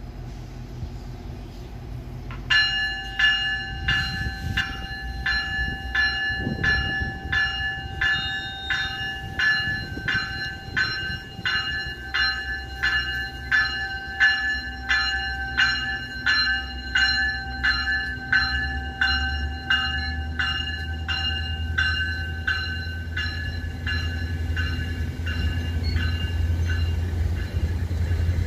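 Railway bell ringing in a steady rhythm of about two strikes a second, starting a couple of seconds in and fading slightly near the end. A low rumble grows louder underneath in the last part.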